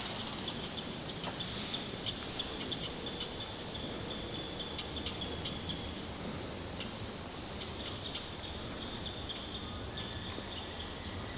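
Quiet, steady chirping of insects, a rapid high ticking that carries on without a break.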